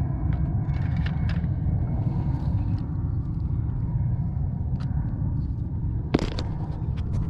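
Steady low wind rumble buffeting the microphone, with scattered light clicks from handling the fishing rod and tackle and a sharper click about six seconds in.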